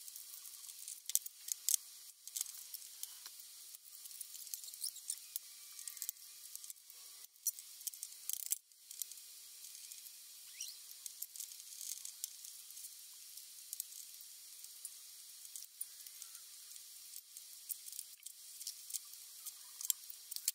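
Faint scattered clicks and taps of small metal screws and an Allen key being handled on a wooden table while the FEP film of a resin-printer vat is changed, over a steady high hiss.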